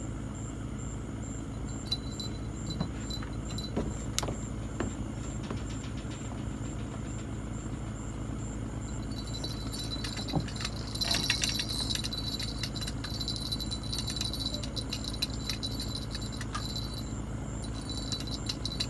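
A steady low engine-like hum, with scattered light metallic clicks and jingling over it that get busiest about halfway through.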